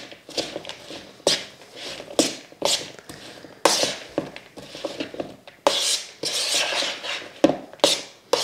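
A metal spoon tossing a salad of grated carrot, spinach and apple in a plastic mixing bowl: irregular swishes of the vegetables, with scrapes and taps of the spoon against the bowl.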